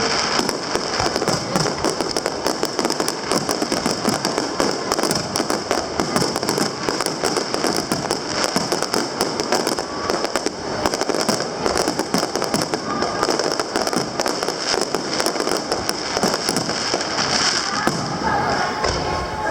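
Aerial fireworks going off continuously, a dense run of rapid crackling pops and bangs.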